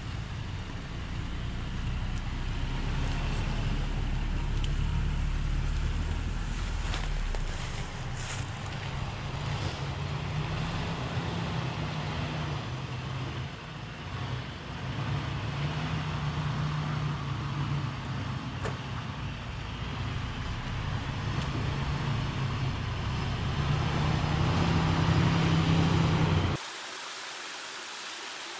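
Engines of a Toyota Tacoma pickup and a second 4x4 running at low speed, their note rising and falling as they crawl over rough ground. About 26 seconds in, the sound cuts suddenly to the steady rush of a small waterfall spilling over rock ledges.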